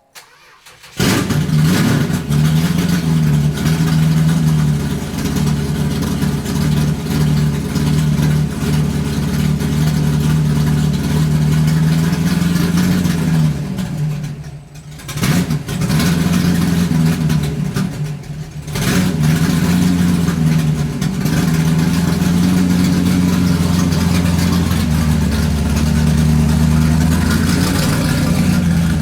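Car engine running loudly, its pitch rising and falling a little as it is revved lightly. It comes in suddenly about a second in and briefly drops away twice in the middle.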